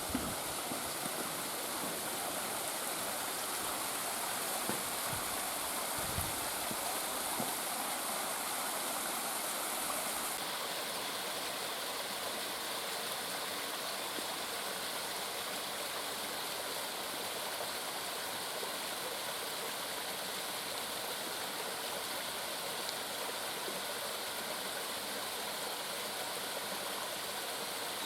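Steady rushing noise like running water, with a few faint knocks in the first seven seconds. The highest hiss drops away about ten seconds in.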